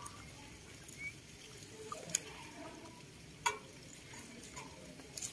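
Quiet sounds of a rabbit and a baby macaque eating fresh leafy greens: soft chewing and leaf rustling with small ticks, and two sharp clicks, one about two seconds in and one about three and a half seconds in.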